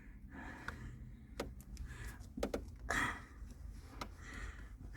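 Hands pushing a plastic wiring-harness plug into its socket under the steering column: a handful of sharp clicks with short bursts of rustling handling noise.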